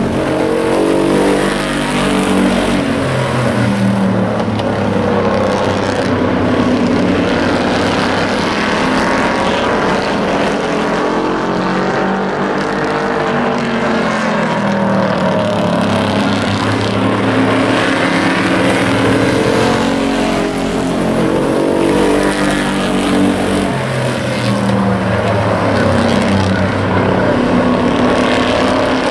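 Several hobby-class race pickup trucks running together, engines revving. Their pitch rises and falls again and again as they accelerate and lift around the track.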